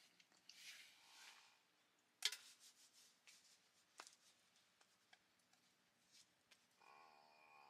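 Faint sounds of a small dog eating from a bowl, then a single sharp click about two seconds in and a few faint ticks. Music begins near the end.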